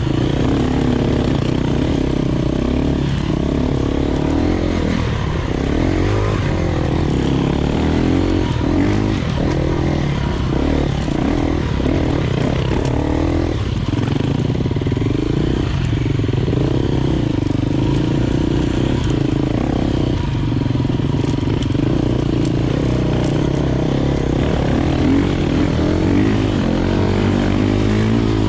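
Enduro dirt bike engine riding a forest trail, its revs rising and falling over and over as the throttle is worked.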